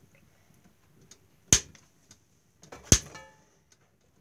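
Two sharp knocks about a second and a half apart, the second followed by a brief rattling ring.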